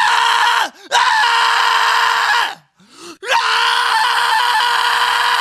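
Harsh, distorted screamed vocal from an experimental metal track, held on one steady pitch in three long notes. Each note swoops up as it starts and drops away as it ends, with short gaps between them. The third note, starting about three seconds in, has quick stutters near the end.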